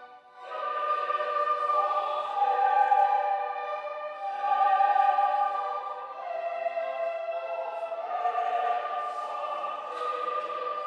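Choral music: voices singing slow, sustained chords, the held notes shifting every couple of seconds. The singing swells in about half a second in.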